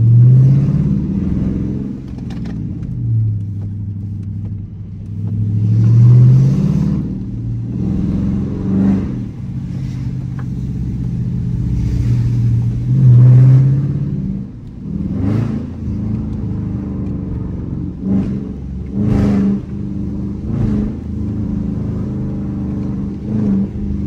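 Dodge Charger R/T's 5.7-litre Hemi V8 running at low speed, its note rising in three short pulls on the throttle, at the very start, around six seconds in and around thirteen seconds in, and settling between them. A few short, sharper noises come in the second half.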